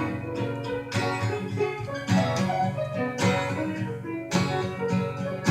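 Instrumental music with a steady beat, strong accents about once a second.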